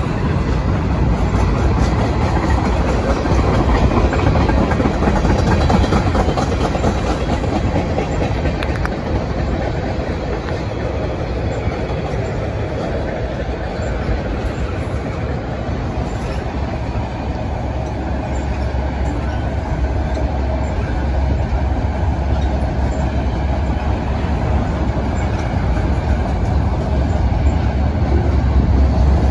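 Freight train cars rolling across a railway overpass: a steady rumble of steel wheels on rail, growing louder near the end.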